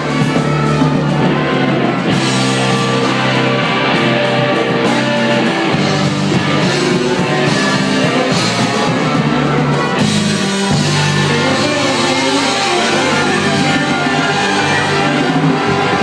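Live blues band playing, with a drum kit driving a steady beat under held instrument notes.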